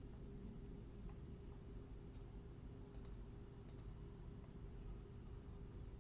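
A few faint clicks at a computer, two quick pairs about three seconds in, over a steady low hum.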